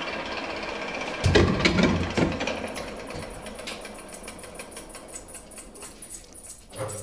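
Small electric lathe in a bamboo-turning workshop running while a bamboo workpiece is worked and handled on it, with a cluster of loud knocks and clatter about a second in, then quieter rattling. A steady low hum comes in near the end.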